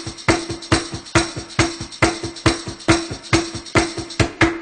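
Background music in an instrumental percussion break without singing: drums with tambourine or shaker keeping a fast, even beat over one held tone.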